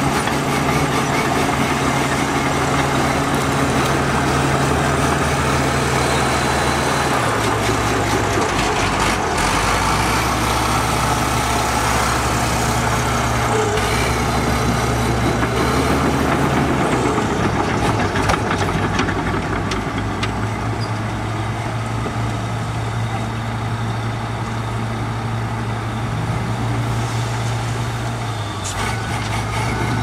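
Heavy diesel engine of earth-moving machinery running steadily under work, its engine note shifting a few times, with occasional metallic knocks.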